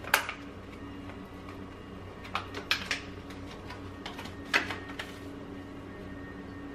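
Sharp clicks and light taps of a small kitchen container being opened and handled while blueberries are set onto a pancake plate. There is one loud click just after the start and a few scattered taps around two to three and four and a half seconds in, over a steady low hum.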